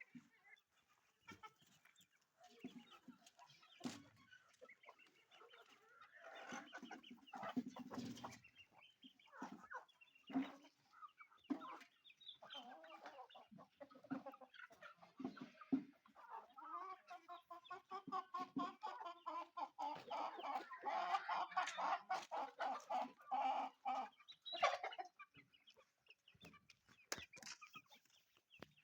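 Chickens clucking and calling, many short calls one after another, growing busier and louder in the second half.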